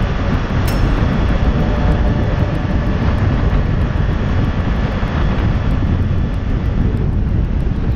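Motorcycle riding at speed: a steady rush of wind on the helmet-camera microphone, with the bike's engine and road noise beneath it.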